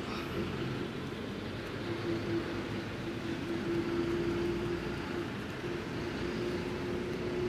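A motor's steady hum over an even background hiss.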